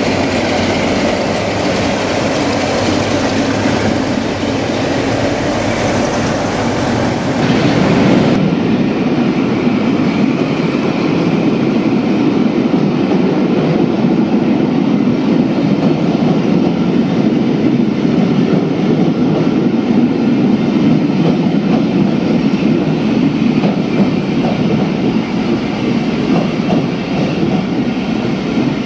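British Rail Class 47 diesel locomotive passing with its engine running, then, from about eight seconds in, a long rake of passenger coaches rolling steadily past on the rails.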